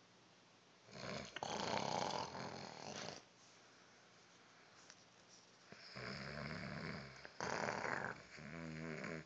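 Snoring: a long rasping snore about a second in, then another snoring breath cycle from about six seconds that ends in a pitched, fluttering buzz near the end.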